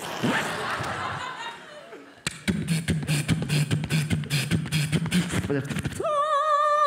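Vocal sound effects beatboxed into a handheld microphone, imitating a radio being tuned: a hiss of static that fades, then rapid clicking over a low steady hum, then a high wavering whistle near the end.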